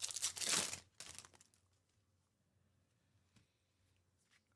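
A Topps Chrome Update baseball card pack wrapper being torn open and crinkled by hand for about the first second and a half, then near silence.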